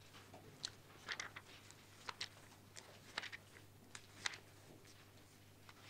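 Faint rustling of book pages being leafed through: a dozen or so short, scattered rustles over a low steady hum.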